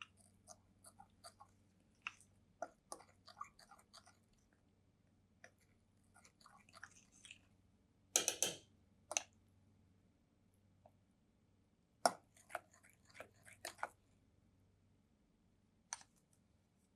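Scattered small clicks, taps and short scrapes of kitchen utensils and dishes being handled, in bursts with pauses between; the loudest scrape comes just past the middle, with another cluster a few seconds later.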